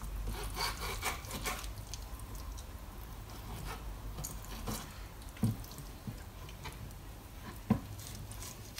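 Faint wet clicking and scraping of a knife working under a lemon sole's fillet along the bones, with two short soft knocks, about five and a half and seven and a half seconds in.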